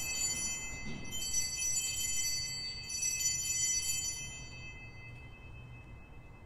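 Altar bells rung at the elevation of the chalice during the consecration: a high, clear jingling ring, shaken again about one and three seconds in, then fading away near the end.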